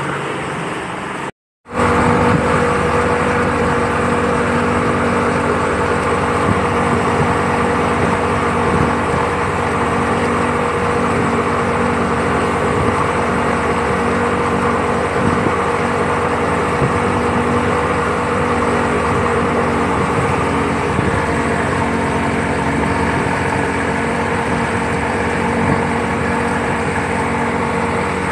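Speedboat's outboard motor running steadily at speed, with the rush of the churning wake and water under the hull. The sound cuts out briefly about a second and a half in, then the same steady engine note goes on.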